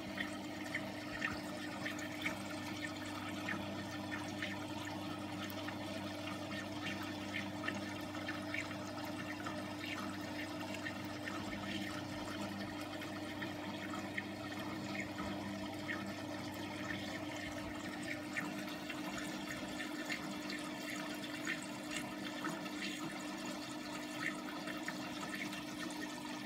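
Aquarium filter running: steady water splashing and bubbling with many small pops, over a low steady hum from the pump motor.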